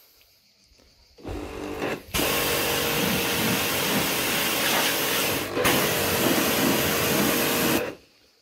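Pressure washer running, its jet spraying steadily onto a plastic garden chair. It starts about a second in, breaks off briefly partway through, and stops suddenly near the end.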